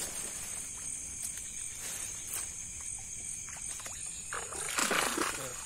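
A steady high-pitched chorus of night insects at a swamp, with a few faint clicks. A louder, rougher noise rises about four and a half seconds in.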